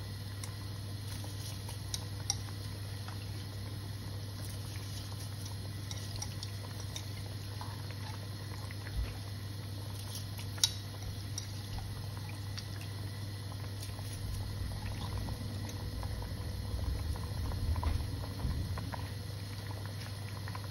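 A large pot of water bubbling on a gas burner as handfuls of soaked basmati rice are dropped in, with a few light clicks and splashes over a steady low hum. The bubbling grows louder in the last few seconds as the water comes back to the boil.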